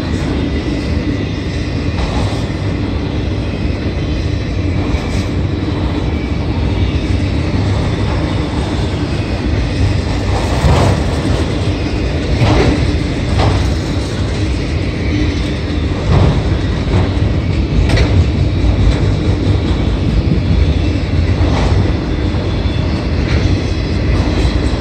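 Freight train autorack cars rolling past close by: a steady rumble of steel wheels on rail, with wheel clicks now and then.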